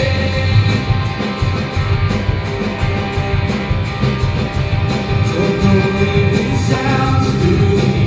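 Live church worship band playing a rock-style song, with electric guitar over a steady drum beat.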